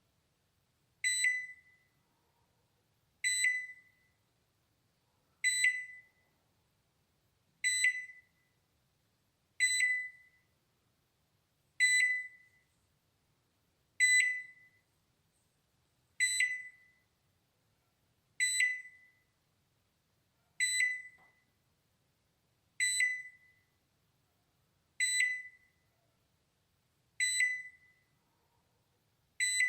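Balay microwave oven's alarm chime: a short, high ding that fades quickly, repeated evenly about every two seconds.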